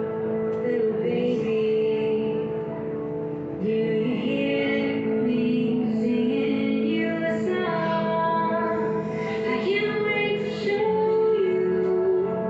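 A recorded song playing, with a woman singing a melody over instrumental backing.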